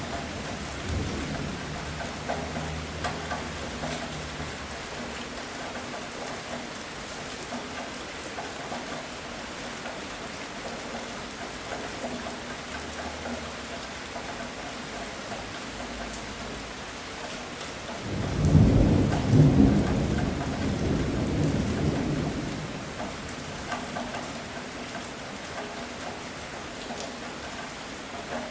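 Heavy rain falling steadily, with low rumbles of thunder in the first few seconds. Around two-thirds of the way through a loud thunderclap breaks and rumbles for about four seconds before fading back under the rain.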